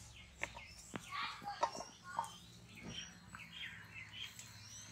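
Birds chirping in the background: many short, quick chirps, with a few light taps and clicks in the first three seconds.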